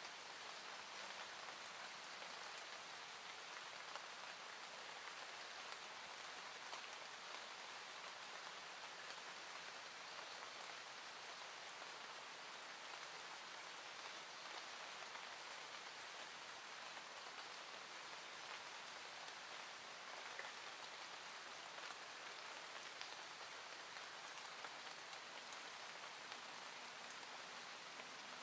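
Soft, steady rain: an even hiss of many fine drops that goes on without a break.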